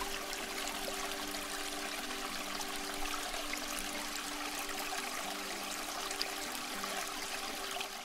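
Aquarium water trickling and splashing steadily, over a low, steady hum.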